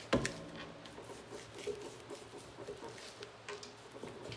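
Foam-tipped ink dauber dabbing ink onto cardstock over a craft mat: a run of light, irregular taps, with one sharper knock right at the start.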